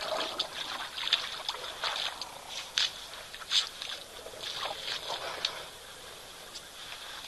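Shallow water splashing and sloshing in irregular bursts as elephants wade and drink at a waterhole, with sharp drips and clicks. It is busiest over the first five seconds, then settles.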